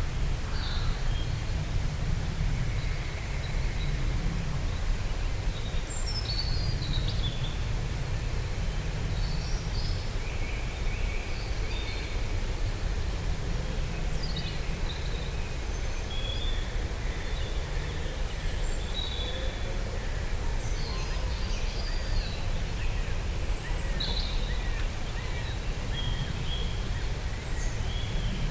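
Soft wind rumbling steadily with small birds chirping over it, short scattered calls and quick glides, with a run of repeated notes about two-thirds of the way through.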